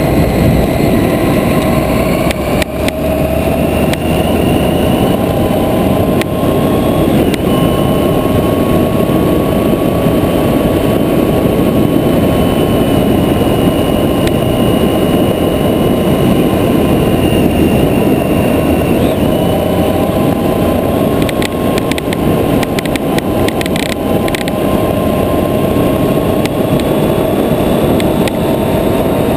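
Triumph Tiger 800 XCa's three-cylinder engine pulling steadily at cruising speed, under a dense rushing noise of wind and tyres on gravel. A run of small clicks comes about three-quarters of the way through.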